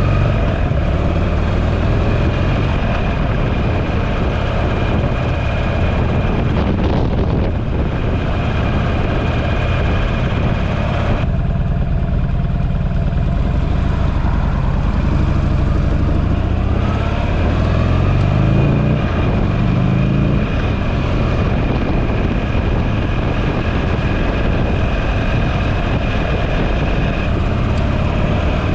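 Buell motorcycle being ridden, its engine running under way with heavy wind rush over the microphone. A little past the middle the engine note rises several times in short steps as the bike accelerates.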